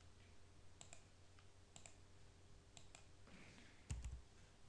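Faint clicks of a computer mouse and keyboard, coming in short pairs about once a second, three times, with a dull low thump near the end.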